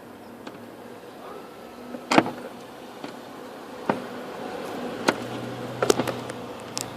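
Scattered clicks and knocks of parts being handled inside a car door during a door-handle replacement, the loudest about two seconds in and several more close together near the end. A faint steady low hum joins about five seconds in.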